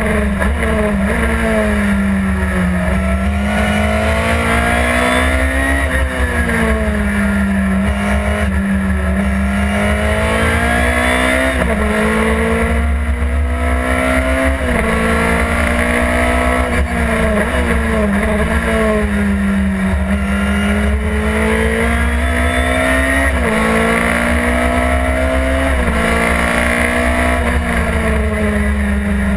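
Chevron B16 sports racing car's engine at racing speed, heard from inside the cockpit. The revs climb and fall sharply again and again as it changes up through the gears, with slower drops as it slows for corners. Wind and road rumble run underneath.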